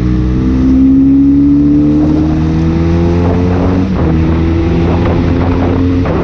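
Benelli Leoncino 500's parallel-twin engine pulling under acceleration. Its pitch climbs, then steps down about two seconds in and again about four seconds in as it shifts up, then holds steady.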